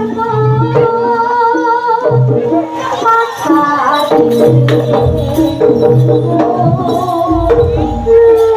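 Live jaranan gamelan music: a wavering high melody line over steady repeating pitched percussion, with low gong strokes coming back at regular intervals.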